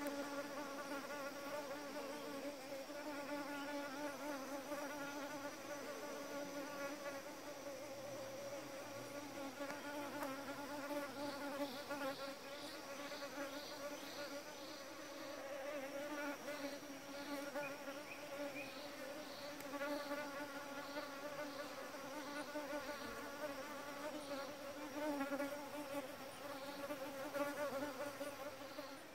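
Flying insects buzzing close by: a steady, wavering hum. A faint high pulsing call, about two a second, comes and goes twice in the middle.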